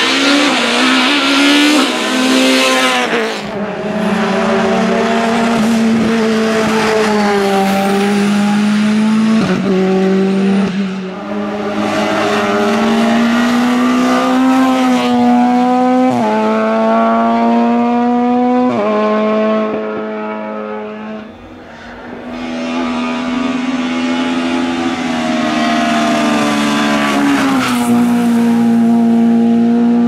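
Race car engines accelerating hard uphill at full throttle. The engine pitch climbs through each gear and drops sharply at the upshifts, several times over as different cars go by in turn.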